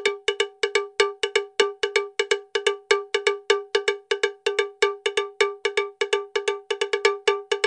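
Quick, evenly spaced cowbell strikes at one unchanging pitch, about five a second: a percussion loop in the background music.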